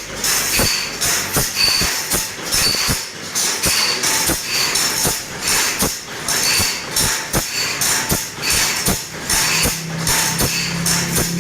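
Steel file rasping across the teeth of a two-man crosscut saw in a steady rhythm of about one and a half strokes a second, each stroke with a high metallic ring. A low hum comes in near the end.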